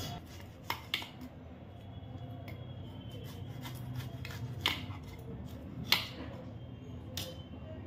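Cutting gondhoraj lime peel for zest: a handful of sharp snipping clicks, spaced a second or more apart, with light rubbing between them.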